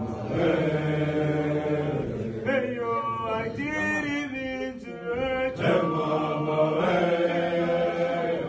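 A group of young male voices singing a gwijo, an unaccompanied Xhosa group chant, in long held phrases with short breaks about two seconds and five and a half seconds in.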